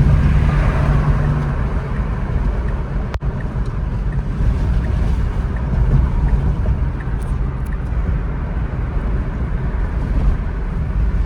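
Steady road and wind noise of a Tesla electric car driving with the windows down: tyre noise and air rushing past. The sound cuts out for an instant about three seconds in.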